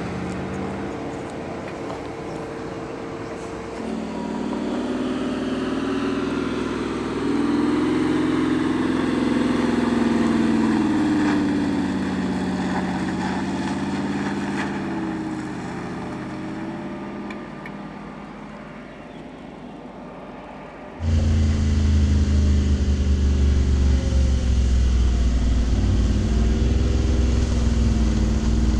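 Mercedes-Benz G500's 4.0-litre V8 petrol engine working under load as the SUV crawls up a steep ramp, its pitch rising and falling with the throttle. About two-thirds of the way through, the sound switches suddenly to a much louder, deeper rumble heard close to the vehicle.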